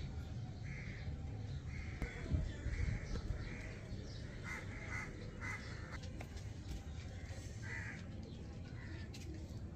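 Crows cawing repeatedly, a string of short harsh calls through the middle, over a low steady rumble.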